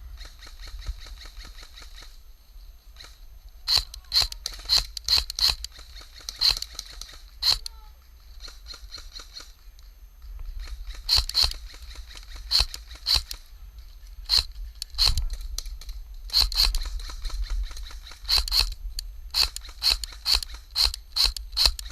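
Airsoft guns firing single shots, sharp snapping cracks in irregular strings of a few a second, with a low rumble of wind or handling noise underneath.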